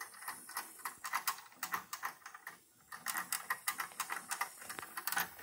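Rapid, irregular light ticking and clicking from the electrically heated boiler of a Wilesco D24 model steam engine as it comes up to pressure, at about half a bar.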